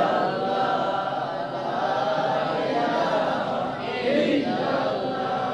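A man's voice chanting a melodic Islamic recitation in long held notes through a microphone, with a new phrase starting about four seconds in.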